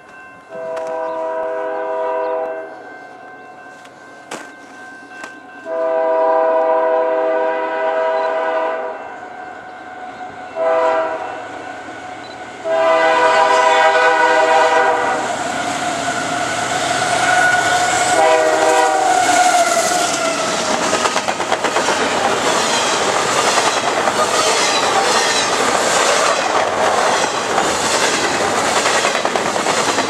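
Canadian Pacific GE AC4400CW locomotive's chime horn sounding the grade-crossing signal: two long blasts, a short one and a long one. Near the end the horn drops in pitch as the locomotive passes. It is followed by the steady rush and rhythmic wheel clatter of a double-stack container train going by.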